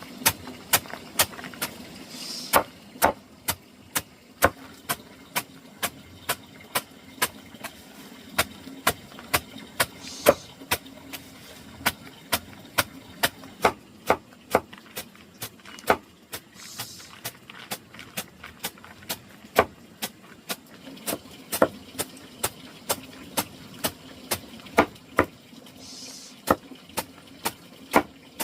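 Long run of sharp strikes from hand-tool work, about two a second and fairly even, over a faint steady low hum.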